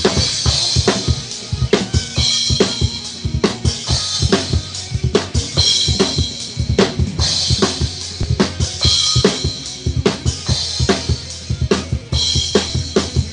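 Drum kit played fast: rapid bass-drum and snare strokes under a cymbal crash about every second and a half.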